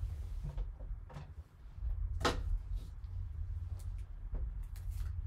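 Gloved hands handling trading cards and hard plastic card holders: a string of light clicks and knocks, the loudest about two seconds in, over a steady low hum.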